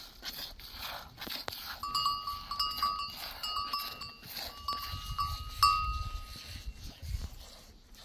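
Small metal bells on goats clinking and ringing in quick clusters as the animals move, starting about two seconds in, with the loudest strike a little past the middle.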